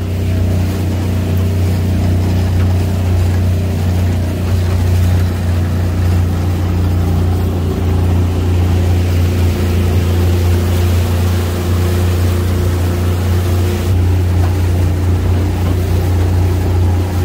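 Outboard motor running at a steady trolling speed, a constant low drone, with the rush of water along the hull.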